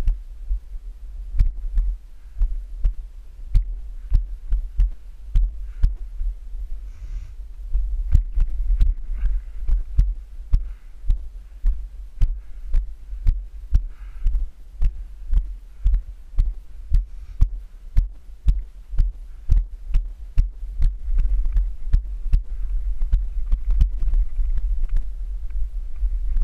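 Footsteps of the camera wearer walking over sandstone rock, regular thuds about twice a second, over a steady low wind rumble on the microphone.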